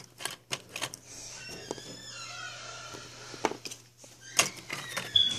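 Small hard plastic clicks and taps as tiny plastic toy figures are set onto a plastic toy scale's tray, clustered near the start and again in the last two seconds.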